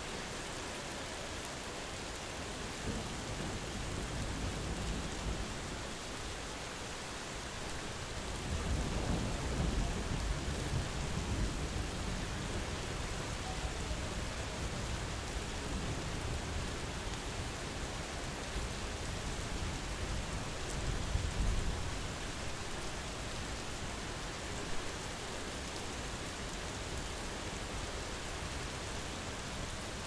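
Steady medium-intensity rain with distant thunder rolling low in the background several times, the longest roll about eight to twelve seconds in and another around twenty seconds in.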